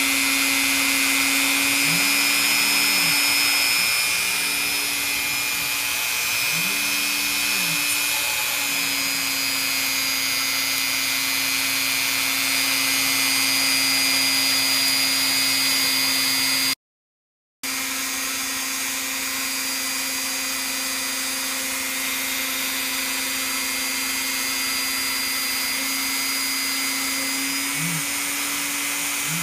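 A motor-driven machine running steadily with a constant whirring hum, cutting out for about a second midway.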